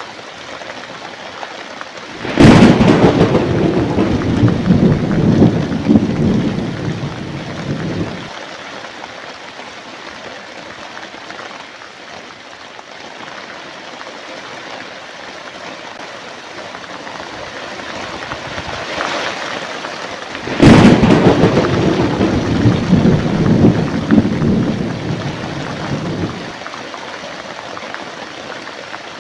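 Steady rain with two claps of thunder, one a couple of seconds in and one about two-thirds of the way through. Each starts with a sudden crack and rumbles on for about six seconds before fading.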